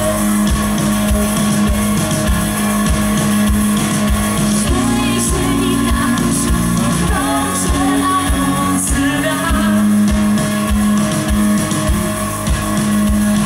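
Live rock band playing: a drum kit keeps a steady beat with cymbals over held bass notes and electric guitar.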